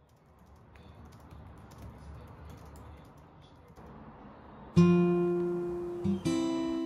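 Soft clicking of a laptop keyboard being typed on, faint under a quiet room hiss. About three quarters of the way in, acoustic guitar music comes in loud with a strummed chord, a second chord following about a second and a half later.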